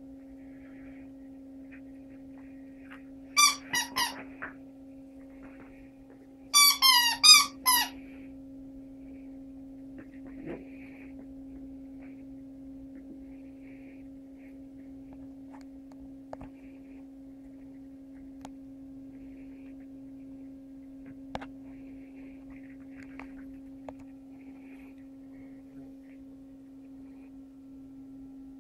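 Squeaky dog toy squeezed by a puppy chewing on it: a quick run of three or four squeaks, then a few seconds later a second, louder run of four or five. A steady low hum sits underneath.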